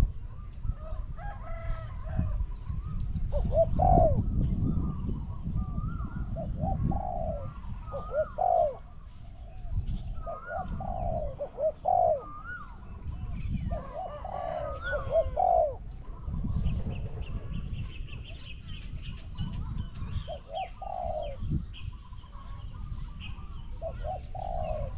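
Spotted dove cooing: short low phrases repeated every few seconds.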